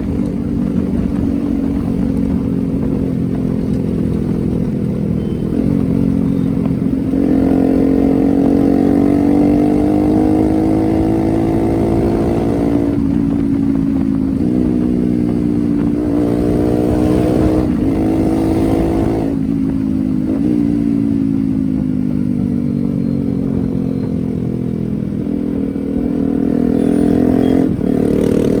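Yamaha R15's 150cc single-cylinder engine running under way, its pitch rising as it pulls through the gears and dropping briefly at each of several shifts, then falling back as the throttle eases.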